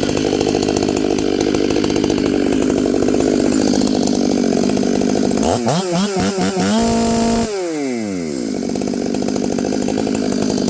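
Stihl MS 500i fuel-injected two-stroke chainsaw running at high throttle in a cut. A little past halfway its pitch wobbles up and down quickly, holds high and steady for a moment as it revs out, then falls sharply before settling back to a steady loaded note.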